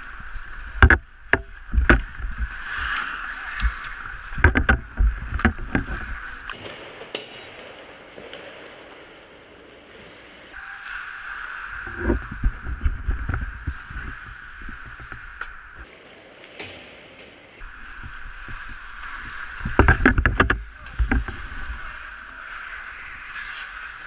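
Ice hockey skate blades scraping and carving on rink ice, with sharp clacks of sticks and puck. The clacks come in a dense cluster about twenty seconds in, and there are quieter lulls between plays.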